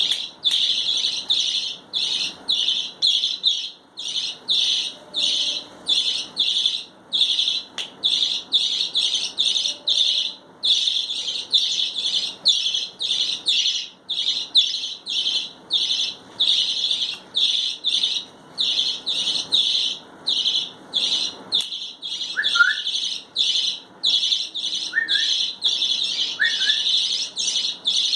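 Pet budgerigars chirping over and over: short, high chirps about two a second, without a break. A few brief, lower rising notes come in near the end.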